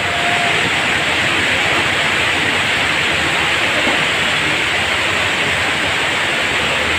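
Heavy rain pouring down and muddy floodwater rushing through a street: a loud, steady rush of water.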